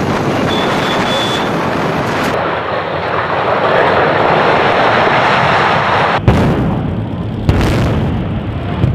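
Dense rumbling roar of a huge fireball explosion, then the noisy crashing of a building being torn down by an excavator. About six seconds in, a sharp bang and a deep rumble of a building demolition, with another sharp bang a second later.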